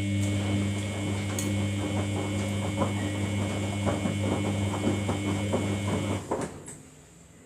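Samsung front-loading washing machine running between its final rinse and final spin: a steady motor hum with a faint higher whine over a stream of small knocks and sloshes from the wet load. It stops suddenly about six seconds in.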